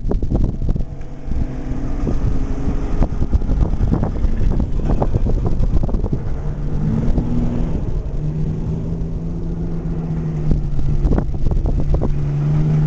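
Nissan Xterra SUV driving over rough off-road ground: the engine runs under repeated knocks and clatter, and its note settles into a steady hum in the second half.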